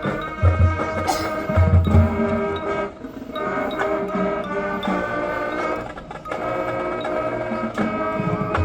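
High school marching band playing its field show: winds and brass hold sustained chords. Strong low pulses come in the first two seconds and again at the very end, with a softer held passage between them.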